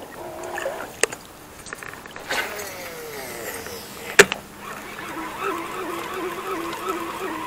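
Baitcasting reel: a falling whine a couple of seconds in, a sharp click about four seconds in, then a steady whir while the handle is cranked to retrieve the lure.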